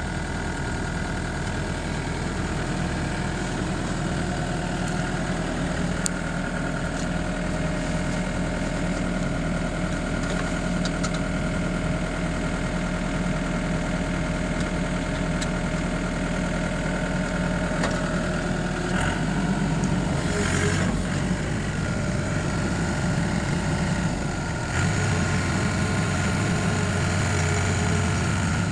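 Excavator's diesel engine running steadily. Its sound shifts around 20 seconds in and grows louder from about 25 seconds in.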